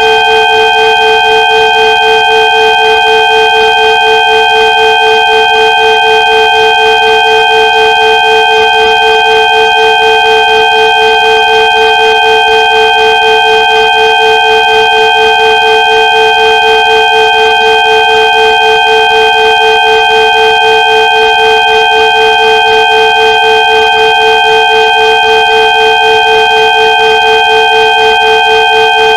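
Synthesized sound-therapy 'healing frequency' tones: several steady pure tones held together as one unchanging chord, with a slight even pulsing in loudness.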